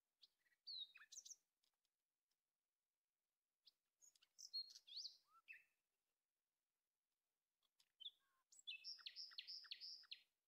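A songbird singing faintly in three short phrases of high chirps and quick whistled glides, the last phrase ending in a fast run of about five repeated notes.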